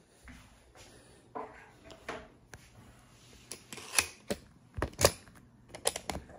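Handling noise from a smartphone held in the hand: a scatter of sharp taps and knocks as fingers grip and touch the phone, the loudest about four and five seconds in.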